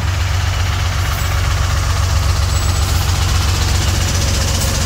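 Heavy tow truck's diesel engine idling close by, a steady low clattering run.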